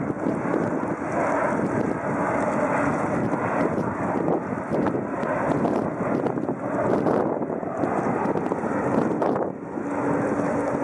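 Boeing 737 jet engines running steadily as the airliner flies low on landing approach with gear down. Wind buffets the microphone at the same time.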